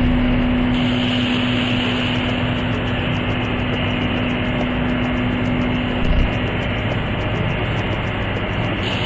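Vertical cardboard baler's machinery running with a steady mechanical noise and hum. The hum stops about six seconds in while the noise carries on.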